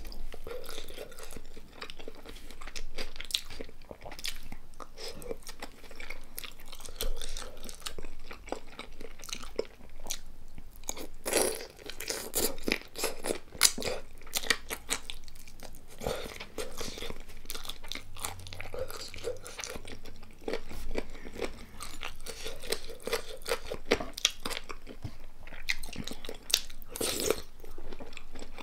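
Close-miked eating: a person biting and chewing crisp food, with repeated irregular crunches and wet chewing throughout, and louder crunching bursts here and there.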